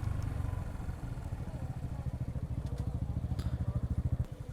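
Motorcycle engine running with a low, pulsing exhaust beat; about four seconds in the beat drops to slower, softer pulses as the throttle eases off.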